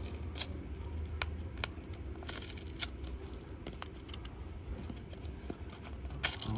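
Stiff paper bank coin-roll wrapper being unrolled and peeled open by hand, crackling in scattered sharp snaps.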